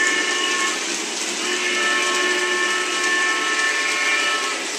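Lionel RailSounds steam-whistle effect from a toy Junior Mikado 2-8-2 locomotive set: a short blast ending a little under a second in, then a longer blast of about three seconds. Each blast is several steady tones together, over a steady hiss.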